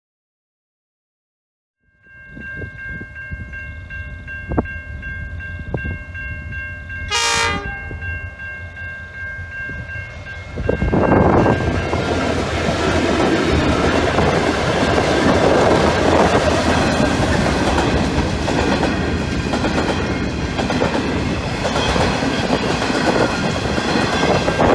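After about two seconds of silence, level crossing warning bells ring steadily, with a brief horn sound about seven seconds in. About ten seconds in, an SSR diesel locomotive hauling a grain train arrives and passes close by, its engine and the wagons' wheels clattering over the crossing loudly and continuously.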